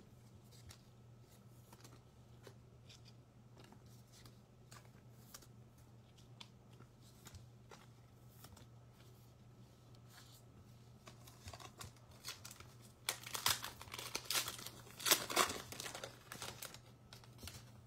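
A trading card pack's wrapper being torn open and crinkled, in noisy crackling bursts from about two-thirds of the way in. Before that there are only faint clicks of cards being handled over a low steady hum.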